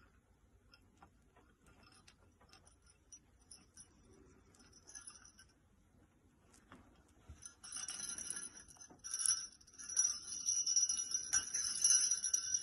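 Small jingle bells on a red ribbon toy jingling repeatedly, starting about eight seconds in, as the ribbon is tugged and shaken about; before that only faint scattered clicks.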